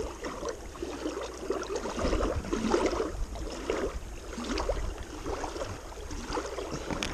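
Small waves lapping and splashing irregularly at the lake's edge, with a low wind rumble on the microphone from about two seconds in.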